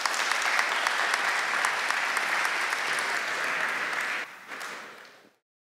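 Audience applauding, many hands clapping steadily for about four seconds, then dying away and cutting off abruptly a little after five seconds in.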